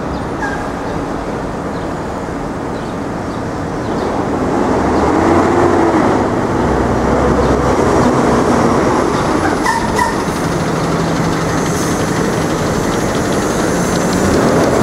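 City street traffic: a steady wash of passing cars and heavier vehicles with a low engine hum, growing louder about four seconds in as a large vehicle goes by. A brief high squeal sounds about ten seconds in.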